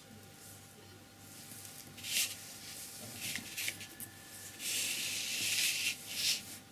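A sheet of heavy painting paper being slid and turned on a tabletop: a few short rustling swishes, and a longer one lasting over a second near the end.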